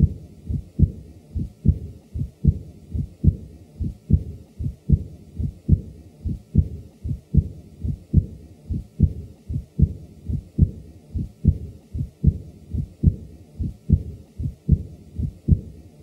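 Heart sounds of a man with mild aortic regurgitation: a steady heartbeat at about 75 beats a minute, each beat with an early diastolic murmur that begins with the second heart sound.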